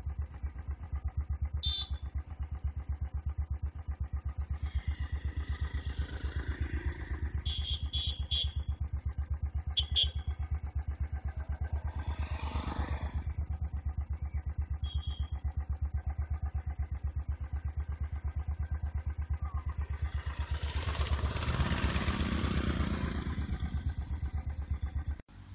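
A motorcycle engine idles with a steady rapid pulse throughout. About twenty seconds in, another motorcycle comes up the road, loudest a little later. A few short high chirps sound over the engine.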